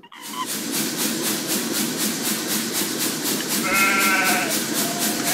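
Steady roar of a gas burner flame, with a brief wavering high tone about four seconds in.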